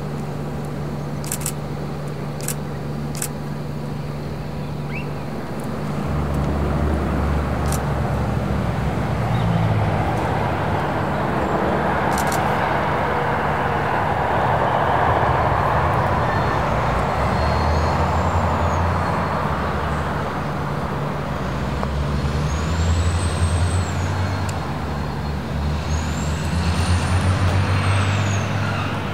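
Two Victorian Railways T-class diesel-electric locomotives, with EMD two-stroke diesel engines, idling and then throttling up about six seconds in as they move off together. Their engines run louder from then on, under a broad rushing noise. Near the end come a few brief high squeals that rise and fall in pitch.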